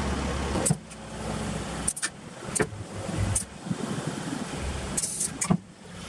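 Air solenoid valves clicking several times, each with a short puff of exhaust air, as pneumatic actuators shift the spools of a five-spool hydraulic control valve. Underneath is a low hum from the running truck that swells and drops as the functions are worked.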